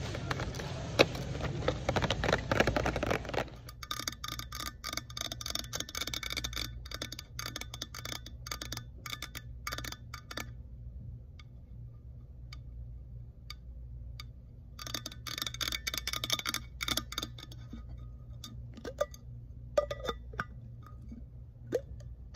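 Long acrylic fingernails tapping rapidly on a pink metal tumbler, with sharp, slightly ringing clicks in two long runs and a pause between, then a few single taps near the end. For the first few seconds, the plastic and cardboard packaging of a boxed toy rustles and crinkles as it is handled.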